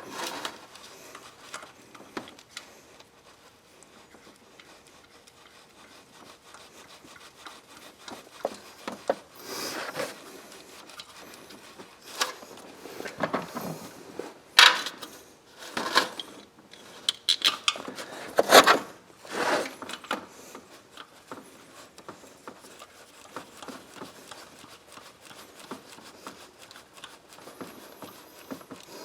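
Hand tools rubbing, scraping and clinking against engine parts during spark plug work, with a run of sharper knocks and clinks in the middle.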